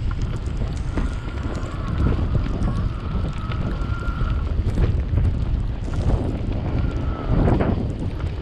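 Strong wind buffeting the microphone, a deep constant rumble, with a faint steady high whine that comes in about a second in and fades after a few seconds, plus scattered light clicks.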